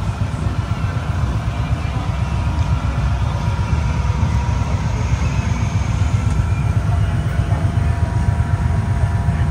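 A motorcycle engine running steadily close by, a deep, even low rumble.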